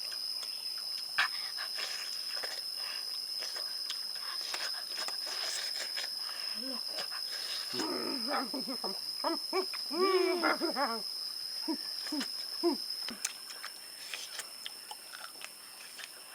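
An animal giving a series of short whining cries that bend up and down, clustered about halfway through. Behind them run a steady high-pitched whine, which stops about two-thirds of the way in, and scattered small clicks.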